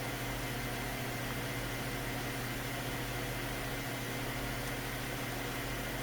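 Steady low machine hum with a constant hiss, unchanging throughout.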